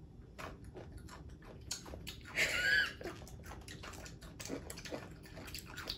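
Children biting into and chewing crunchy pickles, a run of short wet crunches and clicks. About two and a half seconds in comes a brief, louder high-pitched sound.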